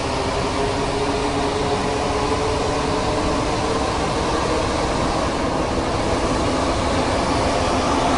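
Metro train running: the steady rumble and hiss of the moving car with a steady hum, growing slightly louder.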